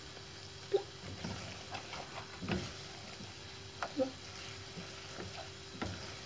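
A spoon stirring and scraping sauce in a frying pan, with a faint sizzle of food cooking, scattered taps of the spoon against the pan, and a steady hum underneath.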